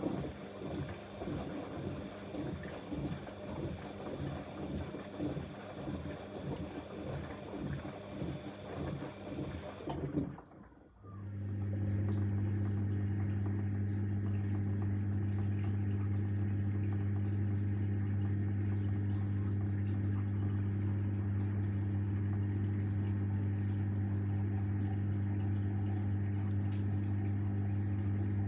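Bosch Exxcel 1400 washing machine: the drum tumbles the load with water sloshing in a pulsing rhythm, then stops about ten seconds in. After a brief pause a loud, steady low hum starts, typical of the drain pump emptying the drum.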